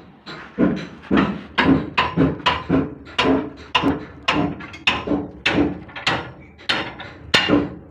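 Repeated hammer blows, about two a second and slightly uneven, each strike ringing briefly.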